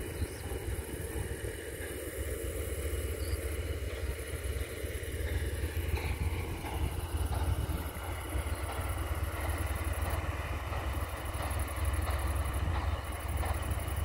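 Tractor engine running steadily, heard from on board the moving tractor, a continuous low rumble that grows a little louder and rougher about halfway through.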